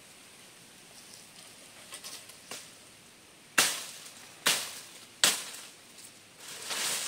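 Three sharp strikes, a little under a second apart, each ringing out briefly, followed by a rustling hiss that builds near the end.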